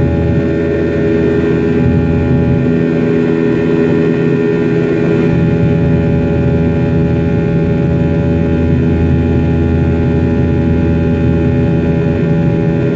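Cabin sound of an MD-90's tail-mounted IAE V2500 turbofan engines running steadily in flight: a loud, even drone with several steady whining tones layered over it.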